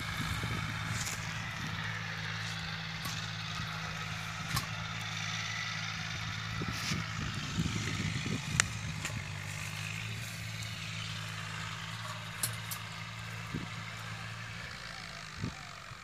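An engine runs steadily in the background as a low hum, fading out near the end, with a few faint clicks of handling over it.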